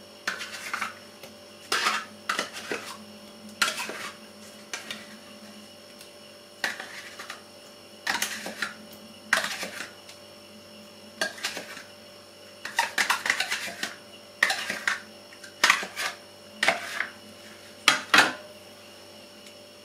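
Metal spoon scraping and clinking against plastic yogurt cups and a metal baking pan while chocolate yogurt is scooped and dolloped onto a cake: short, irregular scrapes and taps a second or two apart, with a quicker flurry about two-thirds of the way through.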